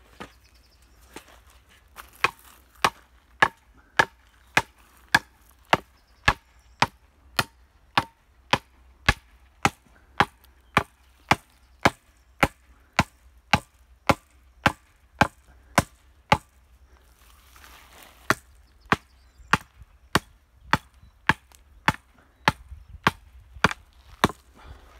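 Sharp, evenly paced knocks, about one and a half a second, in two long runs with a short break about two-thirds of the way through.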